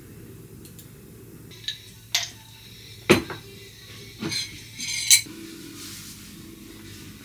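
A ceramic bowl and tableware clinking and knocking as they are handled and set down on a wooden desk: several sharp strikes over a few seconds, the loudest about five seconds in, over a faint steady hum.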